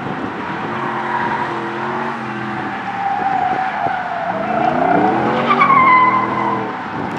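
Ford F-150 SVT Lightning's supercharged 5.4-litre V8 working hard through an autocross course. The engine rises in pitch about four seconds in. Its tyres squeal with a high, wavering tone through the turns, loudest near the end.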